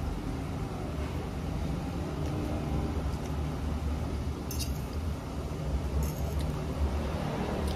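A steady low hum of kitchen equipment, with a few light clinks of a metal fork against a plate: one about four and a half seconds in and a couple around six seconds.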